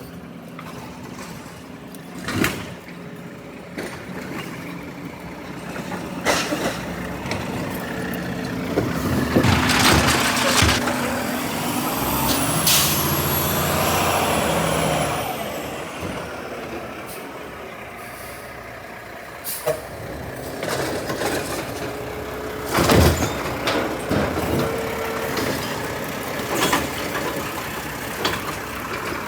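A heavy truck running, with an air-brake hiss about ten seconds in, a high squeal a little after, and several sharp metallic knocks and bangs, the loudest late on.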